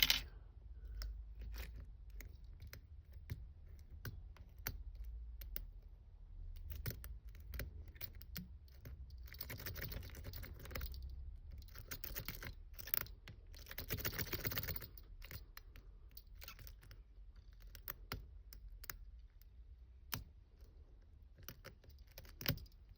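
Lock pick and tension wrench working the keyway of a large Union padlock: scattered small metallic clicks of pins being worked, with two spells of faster scraping as the pick is raked back and forth, about ten and fourteen seconds in. The lock does not open.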